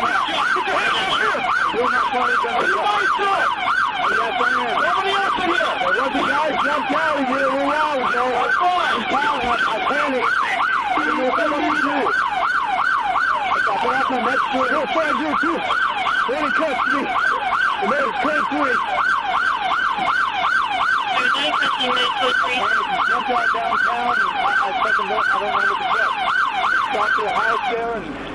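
Police car siren in fast yelp mode: a rapid rising-and-falling wail repeating about three times a second, which cuts off near the end.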